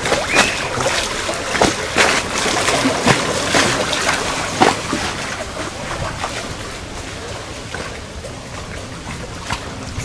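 Reservoir water lapping and splashing at the edge, with irregular sharp slaps over a steady wash of water.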